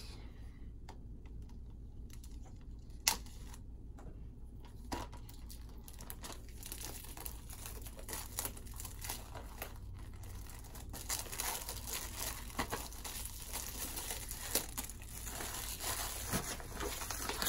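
Plastic shrink-wrap being picked at, torn and peeled off a DVD case: soft crinkling and scratching with scattered ticks. One sharp tick comes about three seconds in, and the crinkling grows busier and a little louder after the first few seconds.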